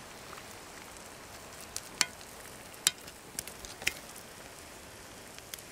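Eggs frying in a cast iron skillet over a campfire: a steady sizzling hiss with a few sharp pops in the middle.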